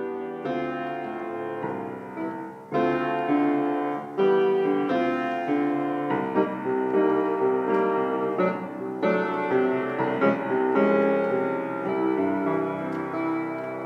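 Background piano music: a series of struck notes and chords, each fading before the next.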